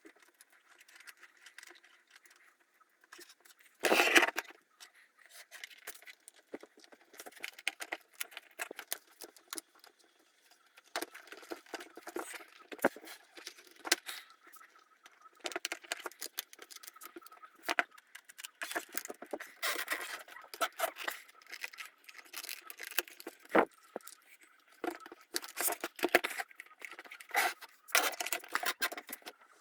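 Irregular clicking, rattling and scraping of small hard parts being handled and fitted, with a sharp knock about four seconds in.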